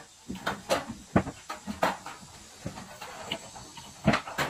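Goats feeding at a metal trough, pulling at chopped corn stalks: irregular rustling, clicks and knocks over a faint steady hiss, with sharper knocks about a second in and near the end.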